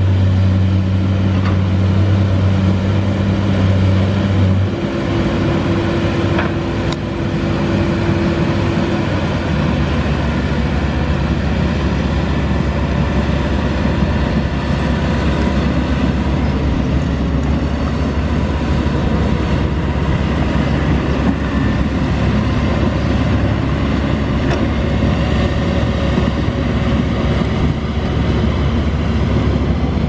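Diesel engines of a Caterpillar crawler bulldozer and a Hyundai crawler excavator running under load as they push and dig earth. The engine note changes about five seconds in and again near ten seconds, then holds as a steady low drone.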